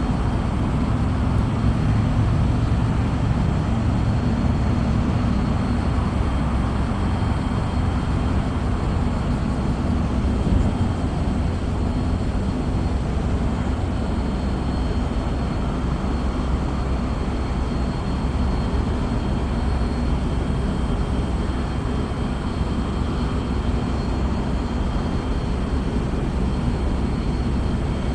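A steady low rumble of outdoor noise without pauses or distinct events, with two faint steady high-pitched tones above it.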